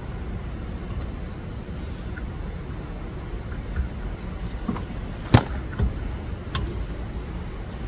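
A few short, sharp metal clinks and knocks as a wheel hub assembly is fitted back onto the steering knuckle, the loudest about five seconds in, over a steady low rumble.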